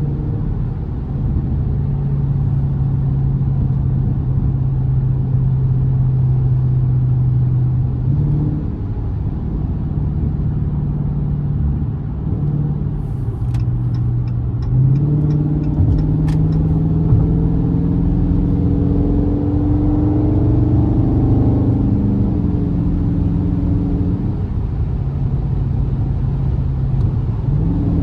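Dodge Scat Pack's 392 HEMI V8 running down the road, its steady note stepping in pitch through gear changes. It climbs under harder acceleration through the middle, then eases back. A short run of faint ticks is heard in the middle.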